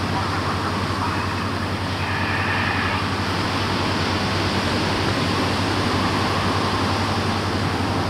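Steady wash of surf breaking on the beach over a low, steady engine hum from the offshore crane work vessel, with a brief high tone about two seconds in.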